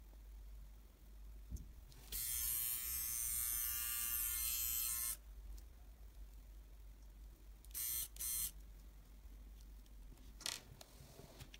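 Small battery nose hair trimmer's motor buzzing at a steady high pitch for about three seconds, then switched on twice briefly in quick succession. A sharp click near the end.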